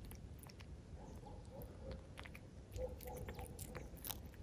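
Domestic cat eating a mouse, with faint, irregular crunching and clicking bites as it chews. A faint wavering call-like tone sounds twice in the background.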